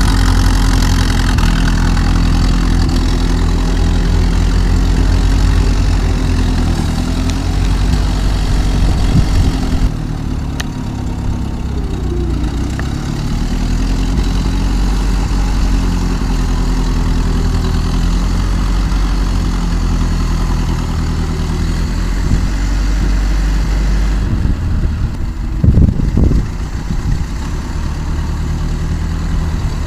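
Old car engine running at a steady idle, with a brief louder surge near the end.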